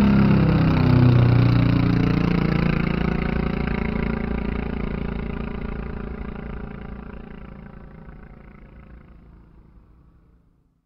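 An engine running, its pitch dropping over the first second or so, then holding steady as it slowly fades out to nothing.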